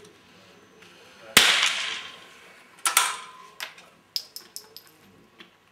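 .22 rimfire running-target rifle firing a single shot, a sharp crack that rings off. About a second and a half later comes a second sharp report. Then small metallic clicks follow as the rifle's bolt is worked.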